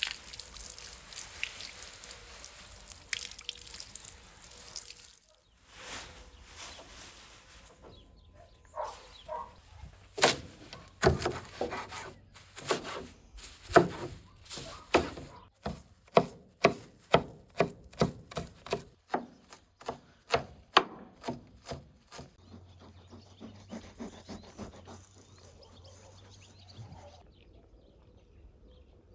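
Water from a garden hose splashing over a bunch of nettle leaves. Then a large knife chops the leaves on a wooden cutting board in a steady run of sharp knocks, about two a second, for some twelve seconds.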